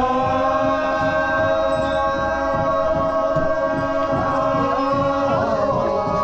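Group of Konyak Naga men chanting together, many voices holding one long sustained note.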